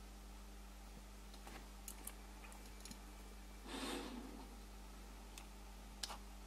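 Faint clicks and a soft rustle from fingers handling thin wire leads on a small model wagon's chassis, over a steady low hum. The rustle about four seconds in is the loudest sound, and a sharp click comes near the end.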